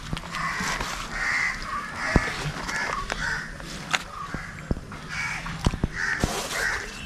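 Crows cawing over and over, several calls in quick succession, with a scatter of sharp clicks and taps.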